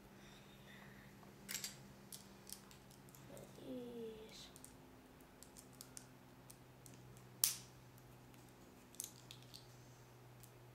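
Plastic Lego pieces being handled and snapped together: scattered sharp clicks and taps, with one louder click about seven seconds in.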